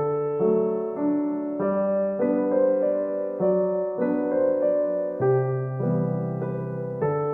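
Background music: a gentle piano or electric-piano melody with held chords, a new note or chord about every half second.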